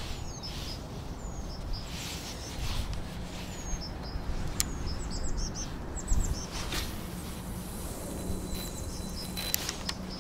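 Small birds chirping in short repeated high calls over a steady low outdoor rumble, with a few sharp clicks.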